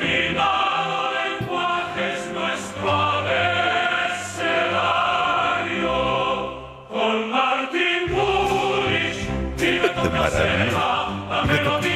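Mock-operatic theme song: a choir singing over music, with a short break about seven seconds in.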